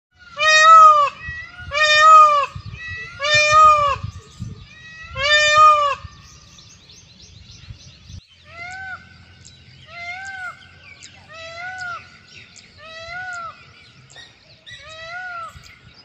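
Indian peafowl calling: four loud, wailing calls that rise and fall in pitch in the first six seconds, then five fainter calls of the same shape, evenly spaced about a second and a half apart.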